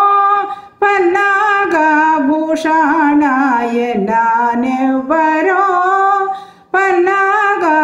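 A woman singing a Telugu devotional song solo and unaccompanied, in long ornamented phrases that step and waver in pitch. She breaks off briefly for breath twice, just under a second in and again near the end.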